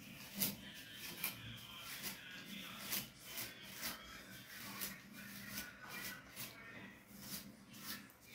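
Fingers and a plastic wide-tooth comb rubbing through dry, coily natural hair: faint, irregular rustling scrapes, roughly one a second, as the hair is pulled apart and combed.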